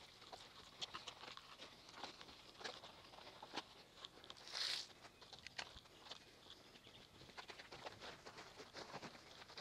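Faint handling noise from a car being hand-washed: scattered light clicks and rustles of the wash mitt, buckets and footsteps, with one short hiss about halfway through.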